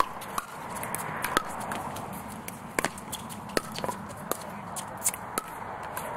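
Pickleball paddles striking a plastic pickleball during a doubles rally: sharp pops at irregular intervals, a few tenths of a second to a second apart, with the ball bouncing on the hard court. Players' shoes shuffle and scuff on the court surface between shots.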